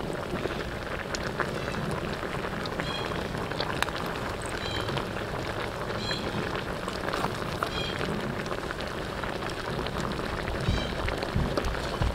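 Dark braising sauce bubbling and sizzling around a whole fish in a wok, a steady fine crackle.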